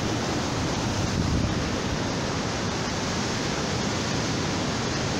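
Steady rush of sea surf breaking on rocks, mixed with wind buffeting the microphone.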